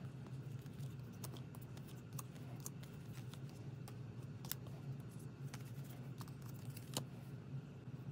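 Light clicks and taps of photocards being handled and set down on album covers, a dozen or so scattered through, over a steady low hum.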